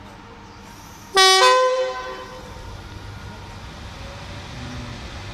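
Class 86 electric locomotive's two-tone horn sounding once, about a second in: a short lower note stepping straight up to a higher note, about a second in all. A steady low hum continues afterwards.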